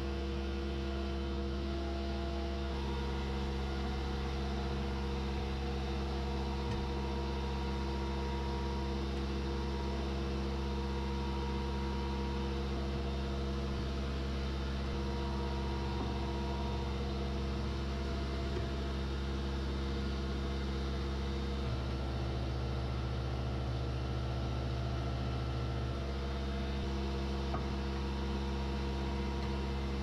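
Steady electrical hum made of several constant low tones, unchanging throughout.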